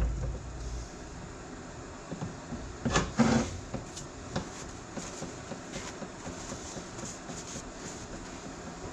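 Scattered light clunks and clicks of metal parts being handled as the tractor's power-steering valve is taken apart. The loudest pair comes about three seconds in, with lighter ticks after it, over a steady low background noise.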